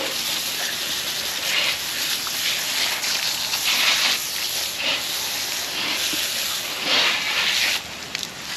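Water spraying onto a flathead catfish to rinse off its slime: a steady hiss that swells and eases, cutting off near the end.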